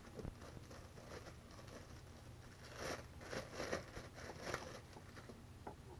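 Faint rustling and crinkling of packaging being handled and opened, in a few short flurries with light clicks.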